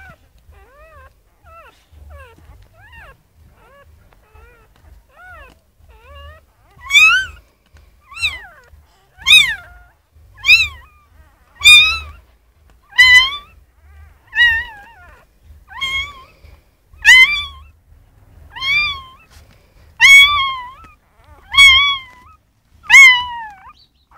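Newborn puppy crying: faint short squeaks at first, then from about a third of the way in a run of loud, high, mewing cries, each rising and then falling in pitch, about one every second and a half.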